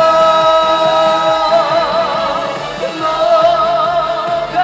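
Live trot song: one long, high held melody note with vibrato over the band's rhythmic backing.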